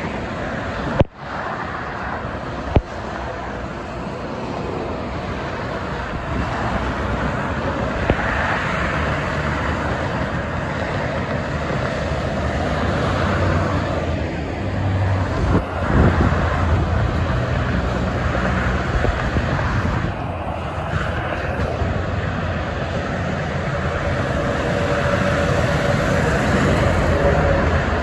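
Steady multi-lane expressway traffic: the tyre and engine noise of many passing cars and trucks, with a heavier vehicle passing about halfway through. Two short knocks in the first few seconds.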